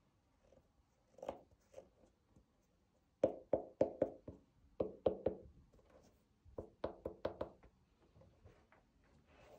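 Quick knocks on the thick ribbed rubber sole of a Kickers Kick Hi shoe, tapped by gloved fingers: a single knock about a second in, then three quick runs of three to five taps.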